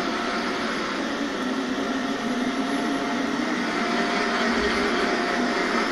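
CROSSRC WT4 1/10-scale RC tow truck running slowly, giving a steady, even whirring.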